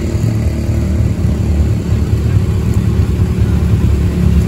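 All-terrain vehicle engine running steadily at low revs, a deep, even rumble without revving.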